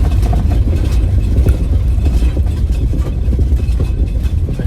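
Iveco Daily van's engine running steadily at low speed, a heavy low rumble heard from inside the cab, with light rattles.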